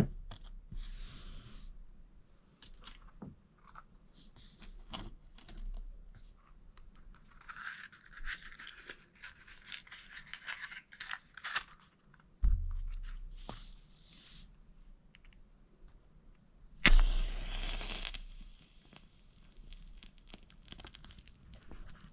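Close handling sounds: scraping, tearing and scratching with scattered small clicks, and a knock about halfway through. About three-quarters of the way in, a sudden loud hiss starts sharply and fades over about a second.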